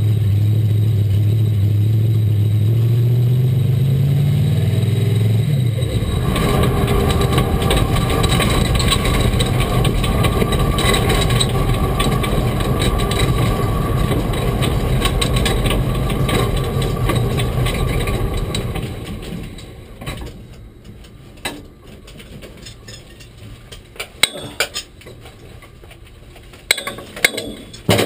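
Supercharged V8 of a 1967 Camaro drag car running at low speed, heard from inside the cabin, its pitch edging up about five seconds in. The sound then changes to a rushing noise with a steady whine, which fades about two-thirds of the way through, leaving scattered clicks and knocks.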